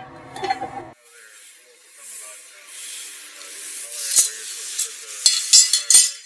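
Several sharp metallic clinks from about four seconds in, as hand tools and small steel parts are set down on a steel workbench, over a faint steady hiss. A low murmur of voices in the first second.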